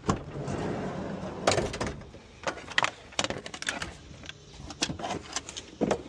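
Work van's sliding side door and pull-out parts tray being opened: a run of uneven clicks, knocks and rattles.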